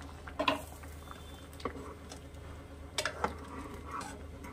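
A metal spoon stirring thick, simmering dal in a pot, with a few light knocks of the spoon against the pot, about half a second in, near the middle and around three seconds in.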